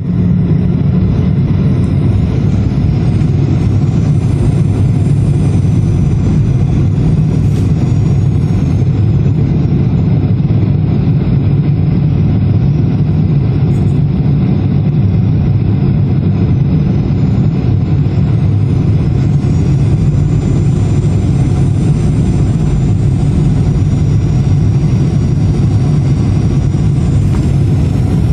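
Steady roar of a Boeing 737-800's CFM56-7B turbofan engines, with a high whine that slowly rises and falls.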